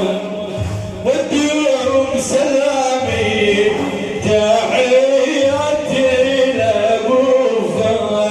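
Male voices chanting a devotional song in praise of the Prophet, with long, bending held notes.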